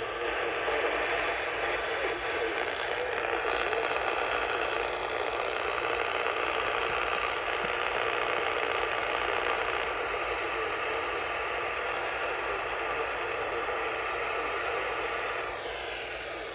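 Steady radio static, an even hiss from the receiver with no programme audio, dropping a little in level shortly before the end.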